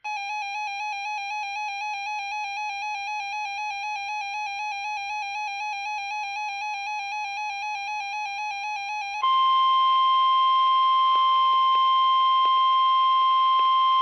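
NOAA weather radio receiver sounding its rapidly warbling electronic alert siren for a severe thunderstorm warning. About nine seconds in, it switches to the louder, steady National Weather Service warning alarm tone from the broadcast, with radio hiss beneath.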